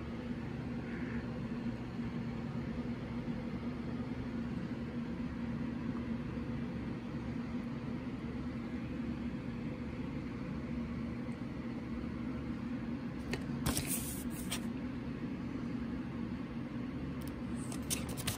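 A steady low hum throughout, with a brief rustle of paper about three-quarters of the way through as the smoke alarm's instruction leaflet is handled.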